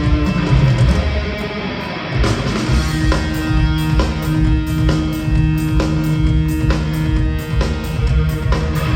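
Rock band playing an instrumental passage live, guitars over bass and drums with no vocals. The band thins out briefly about two seconds in, then comes back in full with held notes over a steady beat.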